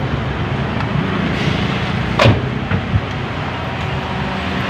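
Mitsubishi Lancer 4G15 four-cylinder carbureted engine idling steadily with the air conditioning on, while the idle is being adjusted toward 800 rpm. A single sharp click sounds about two seconds in.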